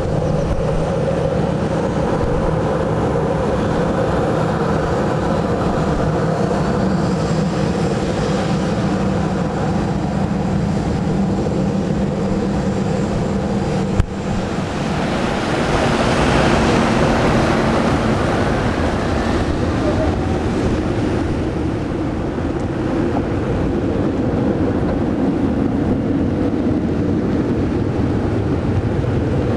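Boeing 737-800 jet engines running steadily, a low hum with a whine over it, amid the hiss of heavy rain. About halfway there is an abrupt cut, after which the engine noise swells louder with a rising whine and then settles.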